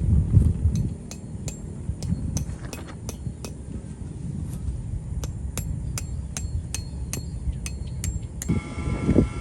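Repeated sharp metallic taps, about two to three a second, over a low steady rumble. Near the end the taps stop and a steady whine with several tones starts.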